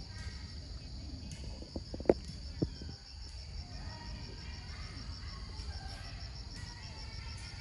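Insects chirring steadily in a fast, even pulsing rhythm. A few short, sharp clicks come about two seconds in, and there is a low rumble underneath.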